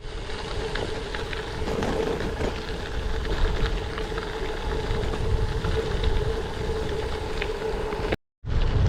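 Gravel bike rolling over a rough dirt road: constant tyre rumble and rattle with small clicks, a steady hum, and wind on the microphone. The clip cuts off abruptly near the end.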